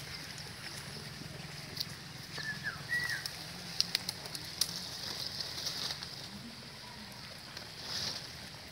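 Outdoor ambience: a few short bird chirps about two and a half to three seconds in, over a steady high hiss and a low hum, with a few light clicks as guava-tree branches are handled.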